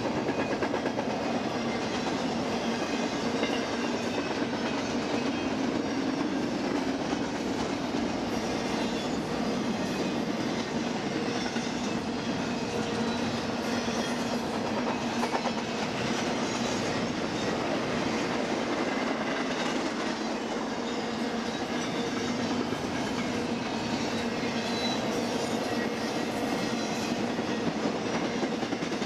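Double-stack intermodal freight train's loaded well cars rolling past: a steady, even noise of steel wheels running on the rails.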